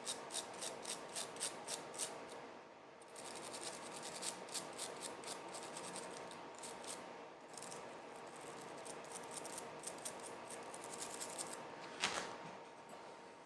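A brush scrubbing a router bit and its bearing, wet with cleaning solution, in quick rhythmic strokes about five a second. The strokes break off briefly about two seconds in, then carry on more lightly. A single sharp click comes near the end, and the scrubbing stops.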